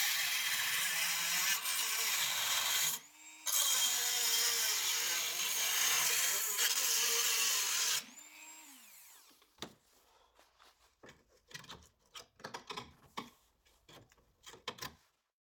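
Handheld rotary multitool running at high speed, cutting into the sheet steel of a Citroën 2CV's A pillar. It stops briefly about three seconds in, spins back up, then spins down about eight seconds in. After that come scattered light metal clicks and scrapes as the cut piece is worked loose by hand.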